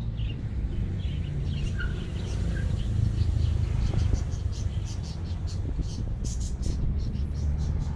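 Outdoor ambience: a steady low rumble with scattered short bird-like chirps, and a run of short high ticks near the end.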